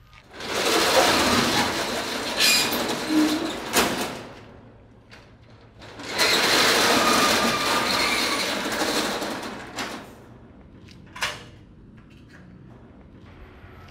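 Corrugated steel roller shutter rattling as it is rolled up, in two long pushes of about four seconds each, followed by a single short sharp knock near the end.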